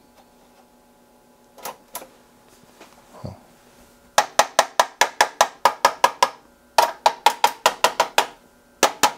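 A few single clicks, then from about four seconds in three rapid runs of sharp clicks or taps at about eight a second, over a faint steady hum.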